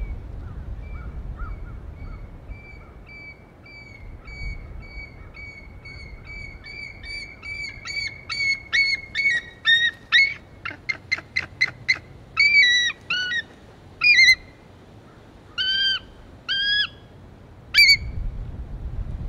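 Bald eagles calling: a long run of thin, high chirps that speeds into a rapid chatter about ten seconds in, then several louder, two-part squealing calls near the end. This is the pair's calling while they defend prey on the nest against an intruding young eagle.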